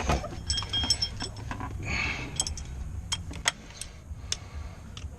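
Metal hand tools clinking and clicking against metal parts as bolts are worked on with a 10 mm socket: scattered sharp clicks, with a short ringing clink about a second in.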